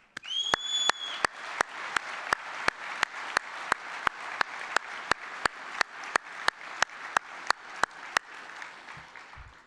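Audience applauding, with one person's hands clapping close to the microphone in an even beat of nearly three claps a second that stands out over the crowd. A brief high tone sounds near the start, and the claps and applause die away near the end.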